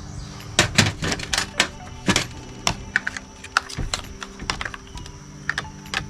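Irregular sharp clicks and knocks of hard parts being handled, crowded together about half a second to two and a half seconds in, then sparser. Steady background music runs underneath.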